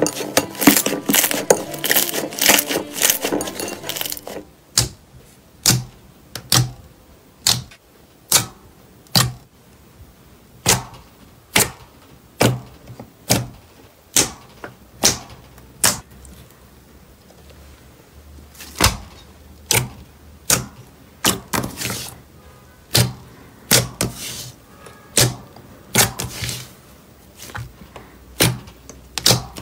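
Fingers pressing into a sheet of glossy green slime, each press giving a sharp sticky click or pop, roughly one a second and sometimes in quick pairs. For about the first four seconds, a denser crackling as blue slime is squished under flat hands.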